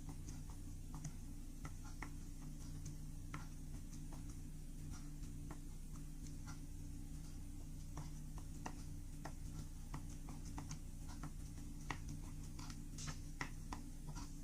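Slime being worked by hand: faint, irregular little clicks and pops, over a steady low hum.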